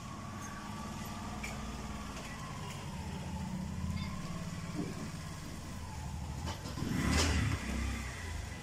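A steady engine-like drone with a thin wavering whine above it, growing louder for about half a second around seven seconds in.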